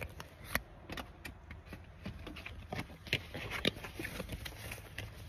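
Faint handling noise: soft, irregular clicks and rustles over a low steady hum.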